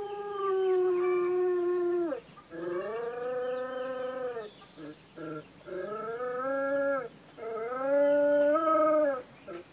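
A dog howling: four long drawn-out howls, each falling off in pitch as it ends, with a few short broken yelps between the second and third. The owner takes this howling for a sign of a female dog in heat nearby.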